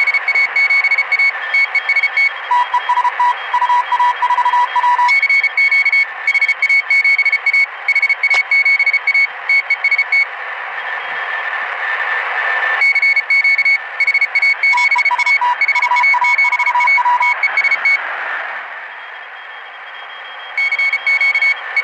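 Grundig Yacht Boy 500 shortwave receiver tuned to 7009 kHz, playing fast on-off keyed beeps over band hiss, which the uploader takes for Morse code messaging. Two beep pitches are heard, a higher one throughout and a lower one at times, with two pauses of plain hiss, about ten and eighteen seconds in.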